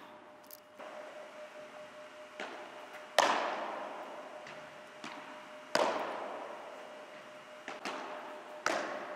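Padel ball being hit back and forth with padel rackets and bouncing during a rally, a series of sharp pops that echo in a large indoor hall. The two loudest hits come about three and six seconds in, over a faint steady hum.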